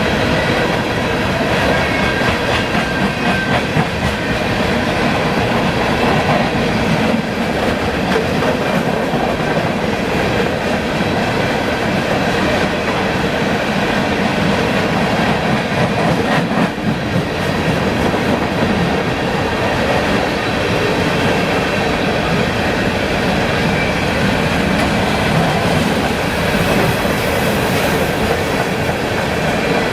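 Freight train rolling past close by: a steady, loud rumble and clatter of the cars' wheels over the rail joints, with faint thin squeals from the wheels now and then.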